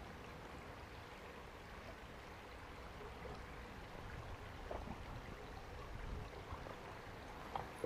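Faint, steady trickle of a small woodland stream, with a light knock or two near the end.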